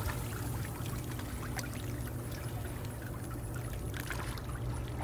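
Soft trickling and lapping of water as a dog paddles across a swimming pool, over a steady low hum.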